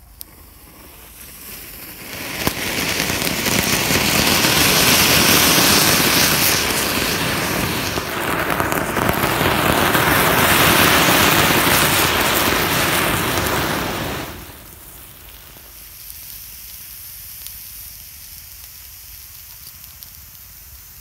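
An anar (flower-pot fountain firework) burning: a faint fizz builds from the lit fuse for about two seconds, then the cone sprays sparks with a loud, steady hissing rush for about twelve seconds, dipping briefly midway, before it cuts off suddenly as the firework burns out.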